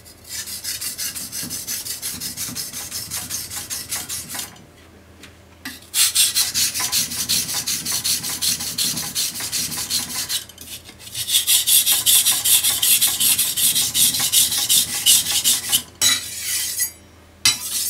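Kitchen knife (bunka bōchō) being sharpened on a wet finishing whetstone: rapid back-and-forth scraping strokes, about four a second. The strokes come in three runs with short pauses between them and a couple of brief strokes near the end.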